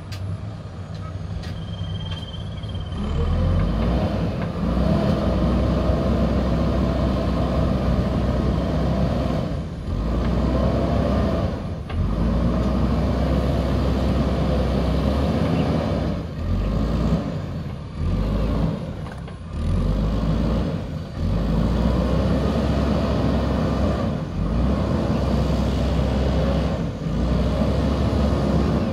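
JCB 3DX backhoe loader's diesel engine running under load as the backhoe digs in wet mud, the engine sound dropping briefly every few seconds and picking up again.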